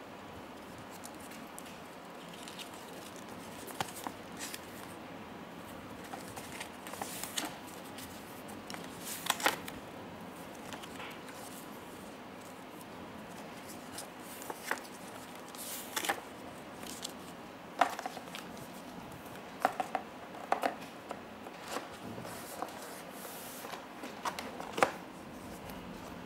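Printed card and folded paper leaflet handled and leafed through by hand: about a dozen irregular sharp paper snaps and taps over a steady hiss.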